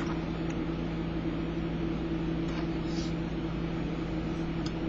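Steady machine hum with a hiss, holding two low tones without change, with a few faint light clicks of small tools being handled on a workbench.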